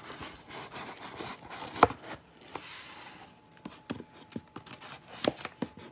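Cardboard shipping box being handled and opened by hand: scraping and rustling of the flaps, with a sharp knock about two seconds in and a run of lighter clicks and taps in the second half.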